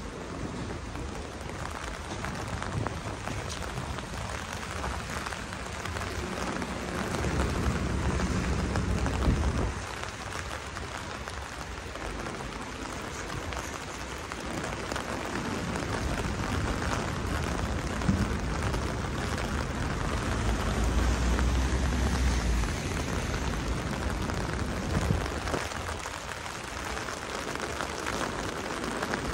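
Steady rain falling on wet city pavement, an even hiss. A low rumble swells and fades twice, about a third of the way in and again about two-thirds in.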